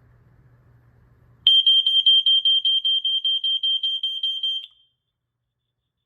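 Older household smoke detector sounding its test alarm: a shrill, high-pitched tone pulsing rapidly, about six pulses a second. It starts about a second and a half in and stops abruptly some three seconds later.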